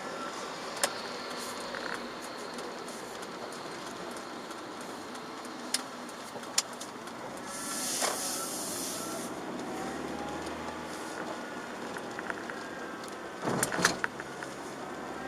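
Chevrolet Aveo with a 1.4-litre petrol engine driving on wet city streets, heard from inside the cabin: steady tyre and road noise, a few sharp clicks, and a burst of hiss about halfway through.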